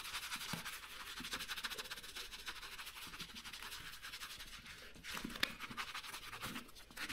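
Small sponge rubbing oil into a leather boxing glove: a fast, faint scrubbing and scratching, with a few louder scuffs about five seconds in.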